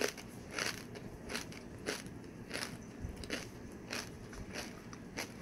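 A kettle-cooked potato chip being chewed with the mouth closed: short crisp crunches in a steady rhythm, somewhat under two a second.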